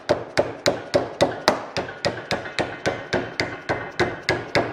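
Dead blow hammer striking a sheet-metal rib flange clamped over a wooden form block in a vise, in quick even blows at about four a second, hammer-forming the flange over the form.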